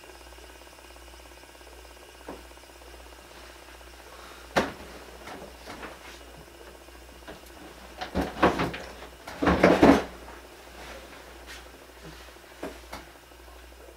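Faint steady background hiss broken by scattered knocks and clattering: one sharp knock a little under five seconds in, then two louder bursts of clatter between about eight and ten seconds in, and a couple of light knocks near the end.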